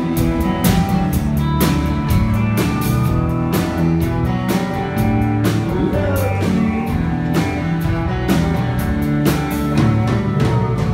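Live band playing a country song: a strummed acoustic guitar and sung lines over a drum kit keeping a steady beat. The drums stop right at the end.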